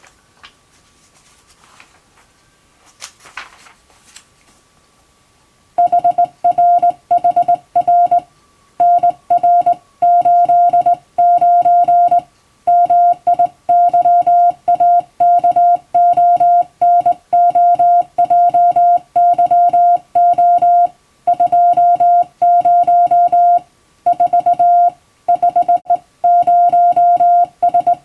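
International Morse code hand-sent on a telegraph key, heard as a steady mid-pitched sidetone beep keyed on and off in irregular dots and dashes, spelling out a telegram-format practice message. Before it starts, about six seconds in, there is a quiet pause with a brief rustle about three seconds in.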